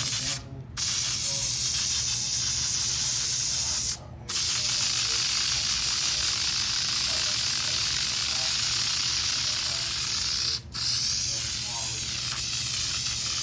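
Aerosol spray can hissing in long, continuous sprays, with the nozzle released briefly three times: about half a second in, about four seconds in, and near the end.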